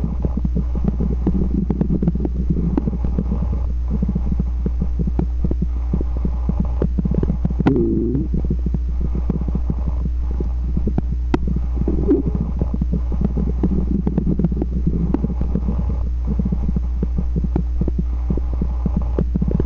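Stomach growling: continuous crackly bubbling and gurgling over a steady low hum, with a few drawn-out, wavering gurgles standing out.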